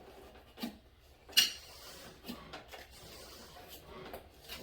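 Glue squeegee being worked over a fluorosilicone patch on a plastic pipe: scattered light clicks and knocks of handling. The sharpest click comes about a second and a half in.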